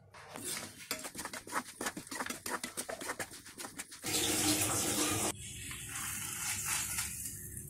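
Hot oil tempering of dried red chillies and curry leaves crackling and spitting in the pan, then about four seconds in a sudden louder steady sizzle that eases off a second or so later into quieter sizzling.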